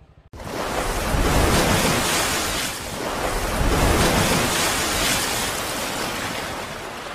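Wind rushing and buffeting against the microphone, starting abruptly and swelling and easing in gusts.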